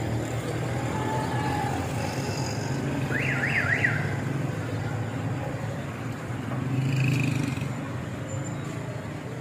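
Steady street-traffic hum, with a brief electronic siren-like warble about three seconds in: a tone sweeping quickly up and down about three times.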